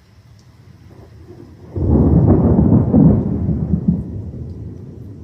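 A crack of thunder about two seconds in, rumbling deep and loud and then fading away over the next two seconds.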